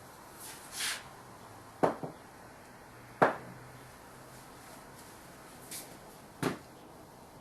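A few sharp knocks of hard objects: a double knock about two seconds in, a louder single one a second later, and another near the end, over a faint steady hum.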